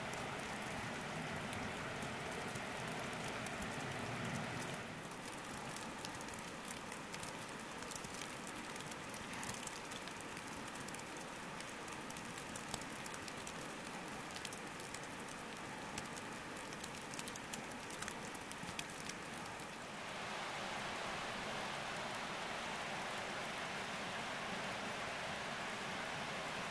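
Rain and wet snow falling on leaves and ground: an even hiss throughout, with many sharp drop ticks through the middle stretch, and a brighter, slightly louder hiss in the last part.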